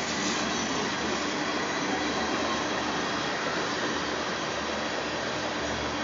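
Freight train of tank cars rolling past at speed: the steady noise of steel wheels running on the rails.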